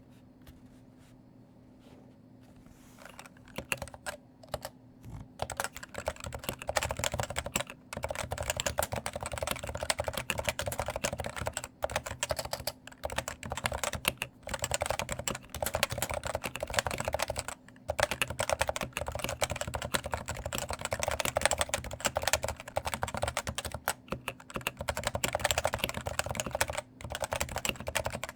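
Typing on a stock Cooler Master Novatouch TKL keyboard with Topre electrostatic capacitive switches: a few scattered keystrokes about three seconds in, then fast continuous typing with a few short pauses. Its light keycaps rattle noticeably on each stroke.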